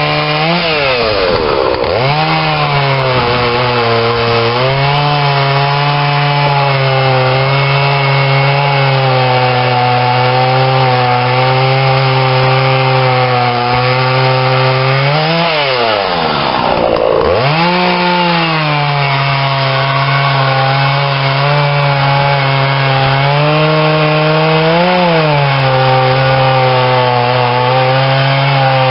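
Husqvarna gas chainsaw running at high revs under load as it cuts down through a stack of logs. The engine note climbs briefly as the chain breaks through, then drops sharply as the throttle is let off and climbs back as the next cut starts, near the start and again about halfway through.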